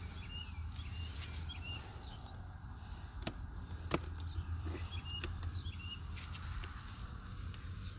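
Small birds chirping now and then, with a few sharp clicks and knocks from wooden hive frames being handled, the loudest about four seconds in, over a steady low rumble.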